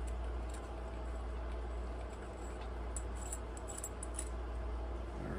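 Faint metallic clicks and light jingling from handling the parts of a metal tube mechanical vape mod, mostly in a short cluster in the second half, over a steady low hum.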